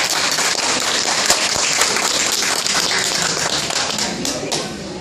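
Audience applauding, a dense run of many quick claps that thins out near the end.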